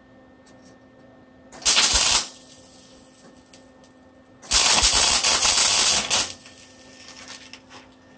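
Electric arc welding on a steel bracket, crackling in two short runs: a brief weld about a second and a half in, then a longer one of nearly two seconds, the kind of short welds used to tack a part in place.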